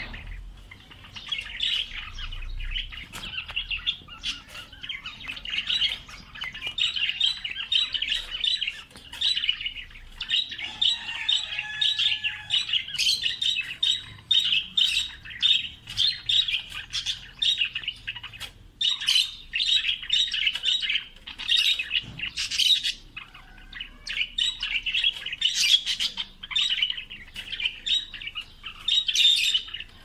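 Caged budgerigars chattering and warbling without a break, with many short, sharp chirps mixed in.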